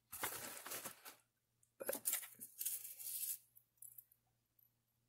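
Rustling and crinkling of packaging being handled, in two bursts: the first about a second long, the second about a second and a half, followed by a few faint ticks.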